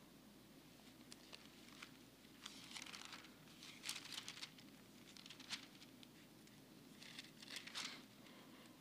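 Faint rustling of paper as Bible pages are turned and a folded sheet of notes is handled, in several short rustles, the loudest about four seconds in and again near the end, over low room hum.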